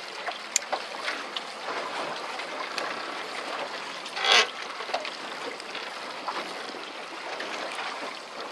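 Water sloshing against the hull of a small drifting fishing boat, a steady wash with a few faint clicks, and one brief louder noise about four seconds in.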